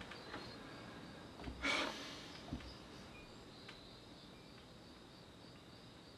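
Faint steady chirring of insects, with a short breathy noise about a second and a half in and a soft low thump about a second later.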